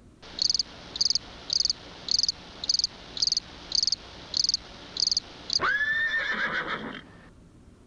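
Cricket chirping, the stock comedy sound effect for an awkward silence: about ten short, high, evenly spaced chirps, nearly two a second. Near the end a longer wavering call follows, held on one pitch for about a second and a half.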